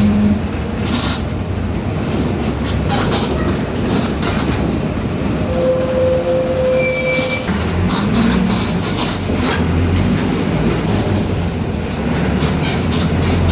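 Mercedes-Benz OF-1721 city bus heard from inside while under way: diesel engine and drivetrain running steadily, with the differential growling, body panels rattling, and a brief whine in the middle.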